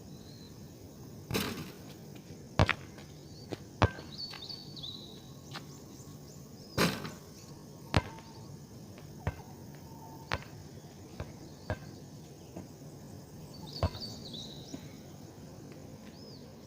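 About a dozen sharp knocks at irregular intervals over a low steady hum, with a few faint short bird chirps between them.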